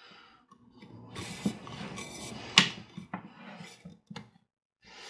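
Airgun barrel shroud being worked over the barrel liner and its O-ring supports: a scraping rub with a sharp click about two and a half seconds in, and a couple of lighter knocks.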